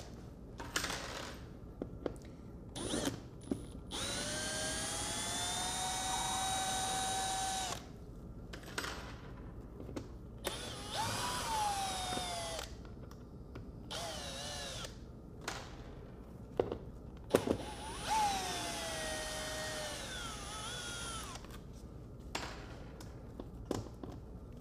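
Cordless drill backing long Torx-head screws out of a cured urethane-foam body form, in several short runs with a whining motor. The longest run lasts about four seconds and holds steady; in others the whine drops in pitch as the motor slows at the end. Sharp clicks and small knocks come between the runs.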